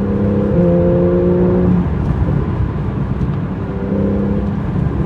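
Porsche 911 Carrera GTS (991.1) naturally aspirated 3.8-litre flat-six with sport exhaust, pulling at steady revs under way. The engine note shifts pitch about half a second in, drops back under road and wind noise, and comes up again near the end.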